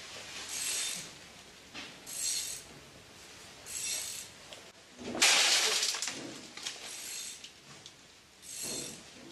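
Rhythmic rasping strokes, one about every second and a half, with a louder, fuller stroke about five seconds in.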